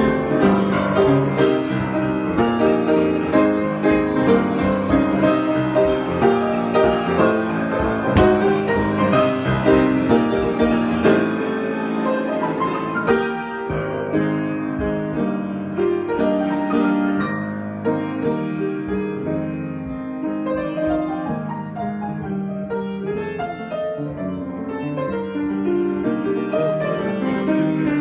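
Piano improvisation with dense, many-voiced chords and runs, loud through the first half, dropping to a softer passage in the middle and building again near the end.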